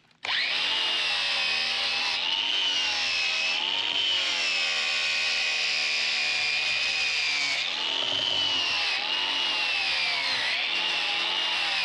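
DeWalt angle grinder with a wire wheel switching on and running steadily, scrubbing rust and scale off a steel air-seeder meter part. Its high whine dips and recovers several times as the wheel is pressed into the metal.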